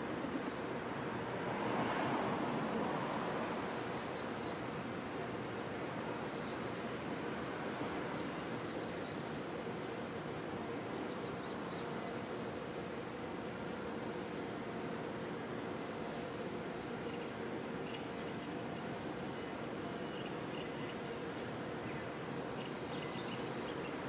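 Insects chirping: a short high pulsed call repeating regularly about every two seconds over a continuous high trill, with a faint even background hiss beneath.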